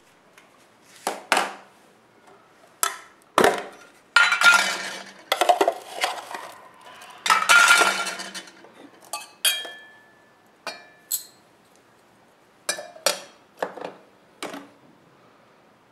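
Irregular clinks, knocks and rustles of tea ware being handled: a metal tea tin's lid pulled off and set down, its foil inner seal rustling, and a porcelain infuser and glass lid knocking against a glass cup. One clink just before ten seconds rings on briefly.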